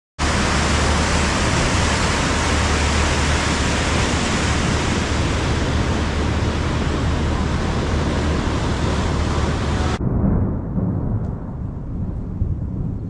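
Flash-flood water rushing and pouring: a loud, dense, steady wash of noise. About ten seconds in it cuts to a duller, deeper, more uneven rumble.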